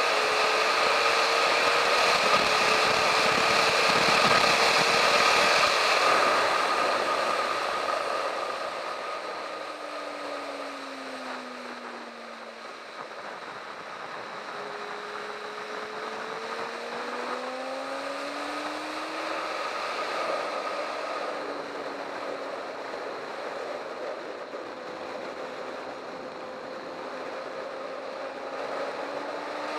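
Sport motorcycle at speed on a track straight with heavy wind rush over the engine. The engine note falls as the bike slows for a corner, then rises in stretches as it accelerates through the turns.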